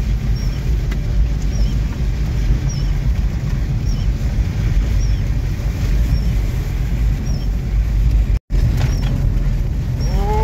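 Steady low engine and road rumble heard from inside a car driving on a muddy dirt road, with a faint high squeak repeating about once a second. The sound cuts out for a split second near the end.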